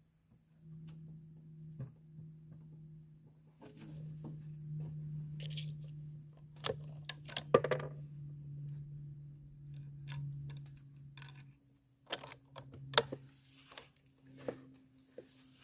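Light metallic clicks and clinks from handling a rifle: a cluster about seven seconds in and several more near the end, over a steady low hum.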